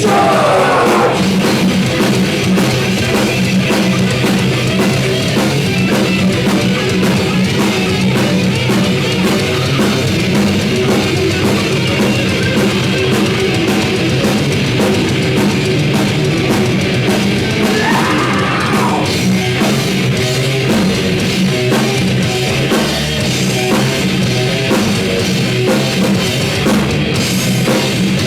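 Rock band playing live and loud: a drum kit pounding under distorted electric guitars, with a guitar sliding down in pitch right at the start.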